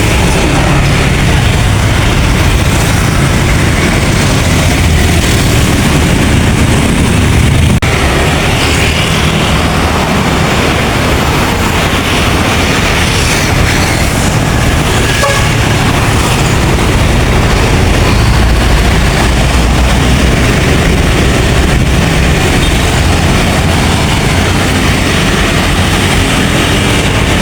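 Large coach buses driving past on a road: loud, steady engine and tyre noise, with a break in the sound about eight seconds in.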